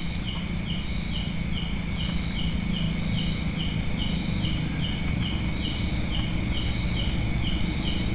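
Night insects, crickets among them, chirring steadily in several high pitches, with one call pulsing evenly about twice a second.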